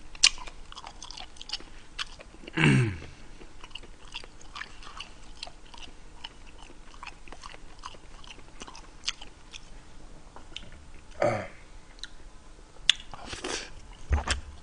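A person chewing food close to the microphone: many small wet clicks and smacks of eating, with two louder, short, low mouth sounds about three and eleven seconds in.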